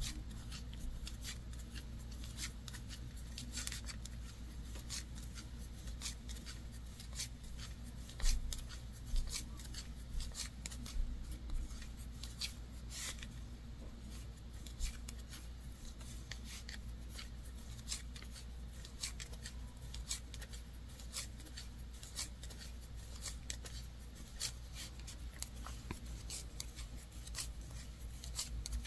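Wooden 7 mm knitting needles clicking and tapping against each other while knit stitches are worked through yarn: a steady run of faint, irregular light taps, a few louder ones now and then.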